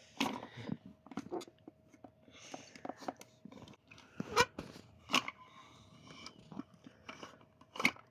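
Hand-cranked NGT boilie grinder crushing hard 18 mm fishing boilies: irregular crunching and sharp cracks as the handle turns and the double-sided blades pull the baits down and chop them to crumb, with a few louder cracks around the middle and near the end.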